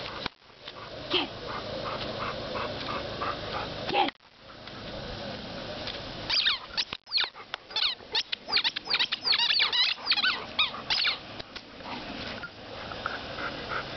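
A dog's pink squeaking ball being chewed by an Airedale terrier, giving a rapid run of many short, high squeaks. The squeaks start about halfway through and go on for around five seconds.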